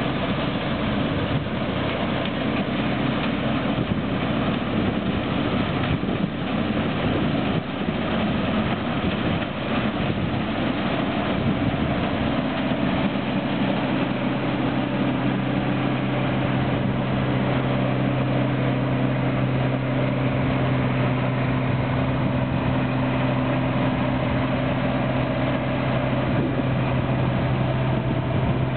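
John Deere 1055 combine harvester running continuously while harvesting rice: a steady engine drone mixed with the noise of the harvesting machinery, its note settling and holding steady from about halfway through.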